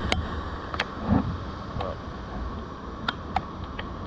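Steady low rush of surf and wind in the rain, with scattered sharp ticks of raindrops hitting the GoPro's waterproof housing.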